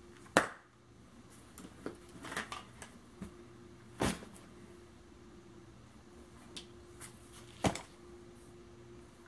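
Gear being handled and set down inside a packed bag of clothes: three sharp knocks, the first the loudest, with fabric rustling and small clicks between them.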